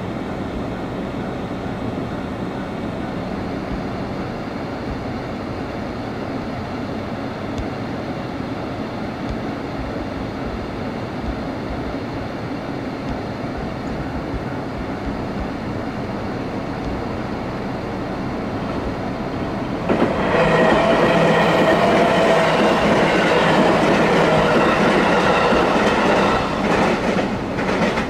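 211 series electric train passing a level crossing. The rail noise is steady at first, then grows much louder about twenty seconds in as the train goes by, with its wheels clattering over the rail joints.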